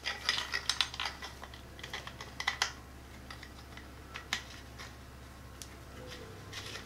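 Small metal conduit lock ring clicking and tapping as it is slid down the surge protector's wires and handled: a run of light clicks over the first three seconds, then a few scattered ones.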